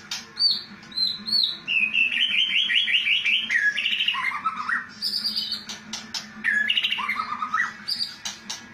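White-rumped shama (murai batu) singing a varied song: clear whistles, a fast run of repeated notes, and phrases that step down in pitch, with a few sharp ticks between phrases.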